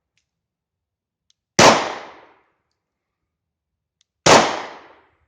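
Two 9mm pistol shots from a P.08 Luger, about two and a half seconds apart, each a sharp crack with a short echoing tail.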